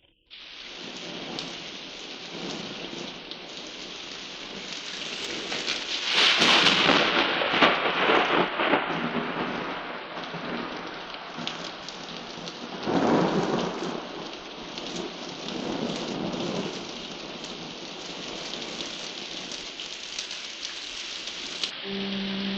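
Thunderstorm sound effect from a Halloween sound-effects record: steady heavy rain with rolls of thunder, the loudest swelling about six seconds in and another about thirteen seconds in. Just before the end the storm breaks off and a low held tone begins.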